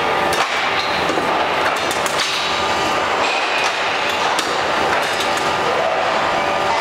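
Hydraulic CNC angle punching line running, with irregular metallic knocks and clanks over a steady, loud machine noise.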